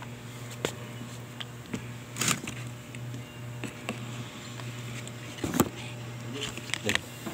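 Scattered clicks and knocks from a diesel fuel filter housing being handled and turned over by hand on cardboard, with a louder knock about five and a half seconds in. A steady low hum runs underneath.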